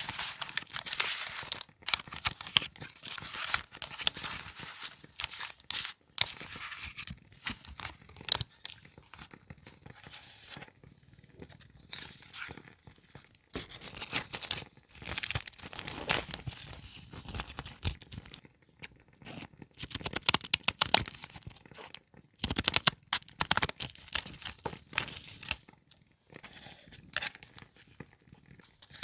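Paper being handled and torn in irregular bursts, rustling and crinkling, with small clicks between.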